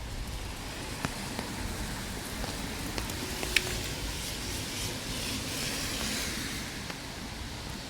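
Rain falling with a steady hiss and scattered sharp drop ticks. The hiss swells for a couple of seconds in the second half.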